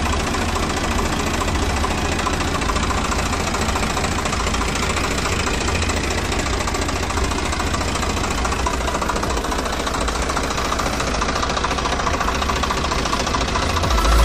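Swaraj 744FE tractor's three-cylinder, 3136 cc direct-injection diesel engine running steadily, heard up close in the engine bay.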